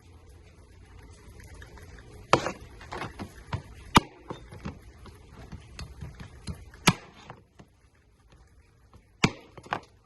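Alaska king crab being cleaned and cut apart: irregular sharp knocks and cracks of hard shell, about five loud ones among lighter taps.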